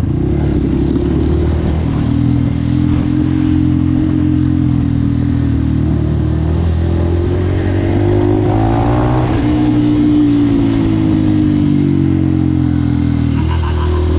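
Dirt bike engine running steadily while riding along at a cruise, its pitch climbing a little around the middle and easing back down afterwards.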